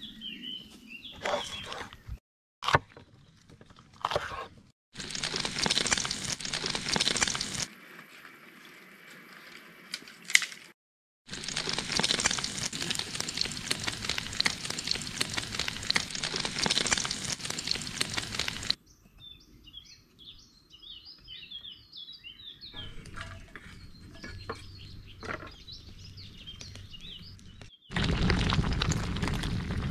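A string of short clips with cracking, crackling and crunching noises, split by abrupt cuts, and a few seconds of birds chirping about two-thirds of the way through.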